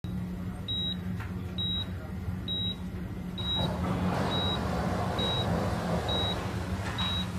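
Bedside patient monitor beeping evenly, a short high beep a little under once a second, in time with the patient's pulse, over a steady low electrical hum. A soft hiss joins about halfway through.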